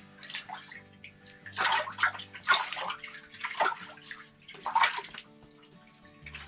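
Water splashing and sloshing in an ice-fishing hole as a walleye thrashes and is grabbed by hand: several separate splashes a second or so apart.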